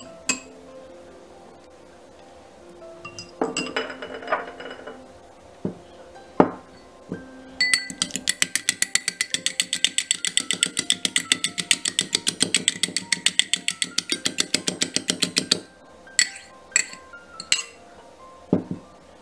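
A fork beating an egg in a small glass bowl: fast, even clinking of metal against glass, about seven strokes a second for some eight seconds in the middle. Separate glass clinks and knocks come before and after, as bowls and utensils are handled, over background music.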